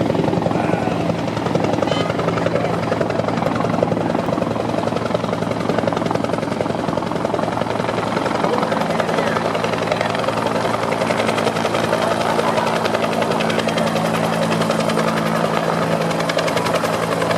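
Helicopter rotor blades beating, loud and steady, with a steady low engine hum that grows stronger about halfway through as a helicopter comes in to land.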